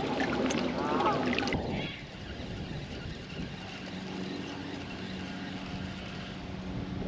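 Water noise from a kayak moving on a river. It drops about two seconds in to a quieter, steady low hum.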